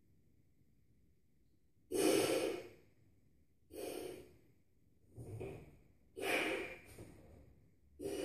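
A man blowing up a large balloon by mouth: five heavy breaths in a row, the first about two seconds in, each lasting under a second.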